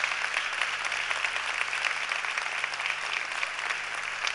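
Audience applauding: many hands clapping at once, easing off slightly near the end.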